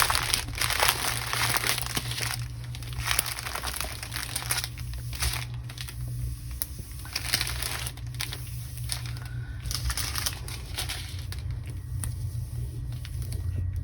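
Plastic packaging of a diamond painting kit crinkling and rustling in irregular bursts as it is handled, over a steady low hum.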